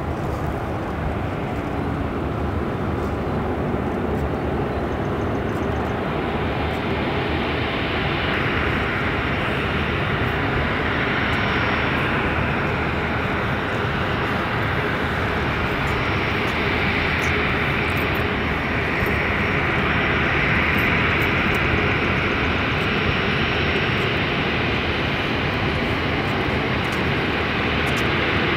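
Boeing 737 Classic's CFM56-3 turbofan engines: a steady jet rumble and hiss that grows gradually louder as the aircraft draws nearer.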